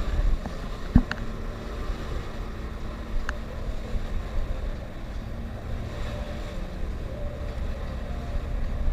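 Motorboat engine running steadily with wind noise on the microphone; a sharp knock sounds about a second in.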